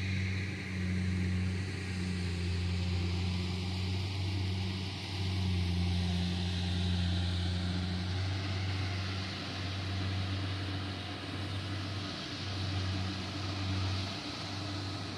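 Kubota DC-70 Plus combine harvester's diesel engine running steadily as it harvests rice, a low hum with a wider mechanical rush above it, briefly dipping in strength a few times.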